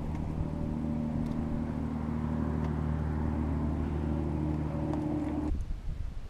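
Boat motor running steadily with an even hum, which stops suddenly about five and a half seconds in.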